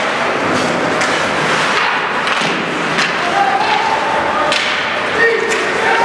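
Ice hockey game in a rink: sharp thuds and clacks of sticks, puck and boards over a steady noisy background, with players or spectators shouting from a few seconds in.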